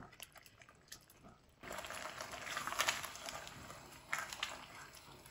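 Cooked tomatoes being mashed and stirred in a nonstick frying pan: a few faint clicks of the utensil against the pan, then from about a second and a half in a faint, steady wet squelching and scraping of the thick sauce with occasional light taps.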